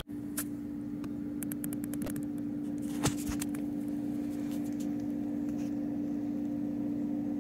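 A steady electrical or mechanical hum, like a small appliance or fan running in a small room, with scattered light clicks and one sharper click about three seconds in.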